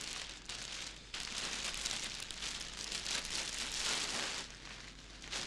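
A bag being handled, rustling and crinkling unevenly, with a short dip a little over a second in and a quieter stretch near the end.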